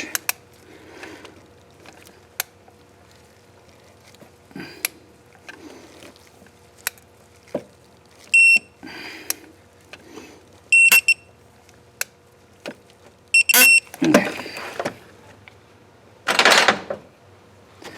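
Three short electronic beeps, evenly spaced about two and a half seconds apart, among scattered light metallic clicks of hand tools.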